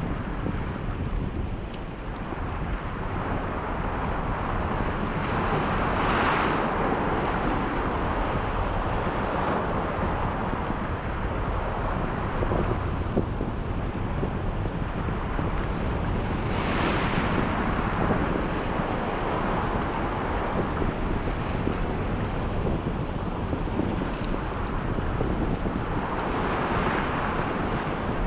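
Sea waves washing against a rocky shore, surging about every ten seconds, under strong wind buffeting the microphone with a constant low rumble.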